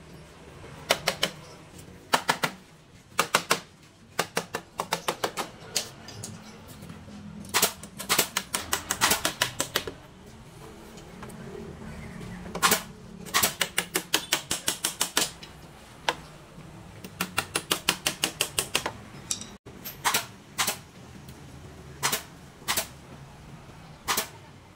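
A hammer striking in quick runs of sharp taps, about five a second, broken by pauses and a few single blows, as when nails or pegs are driven into bamboo.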